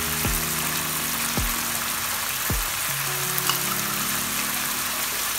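A potato, pea and tomato masala sizzling steadily in hot oil in a frying pan.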